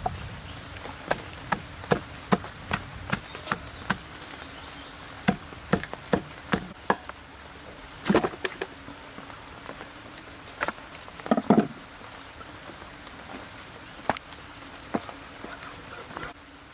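Cleaver and knife chopping and cutting beef ribs on a wooden chopping block: a string of sharp, irregular knocks, with the heaviest blows about eight seconds in and again about three seconds later.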